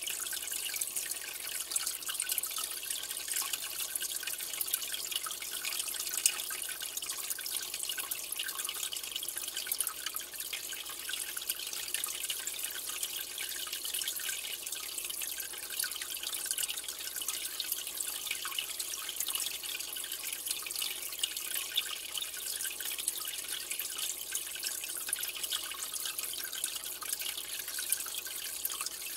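Water trickling and dripping steadily, a continuous fine hiss with tiny splashes.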